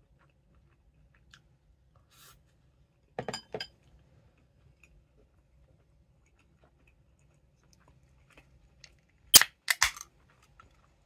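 Ring-pull of an aluminium can of carbonated chu-hi cracked open a little over nine seconds in: a sharp pop and a short fizz of escaping gas, the loudest sound here. About three seconds in, two light clinks.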